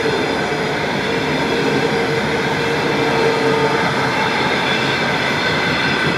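A train passing close by: a loud, steady rolling noise of wheels on rails with a sustained whine held through it.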